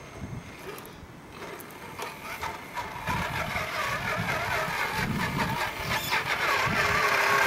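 Tamiya CC01 radio-controlled truck's electric motor and gears whining, the pitch wavering with the throttle, growing steadily louder from about two seconds in as the truck drives up close.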